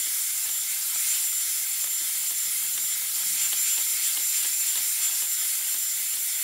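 Dyson Airwrap hair styler with its smoothing brush attachment running on the highest airflow and heat settings: a steady rush of hot air with a thin high whine, as the brush is drawn through damp hair.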